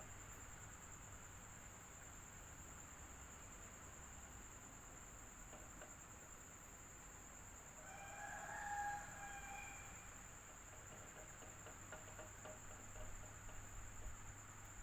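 Electric fan running steadily with a low hum and a thin, constant high whine. About eight seconds in, a faint pitched call lasting a second or two rises above it.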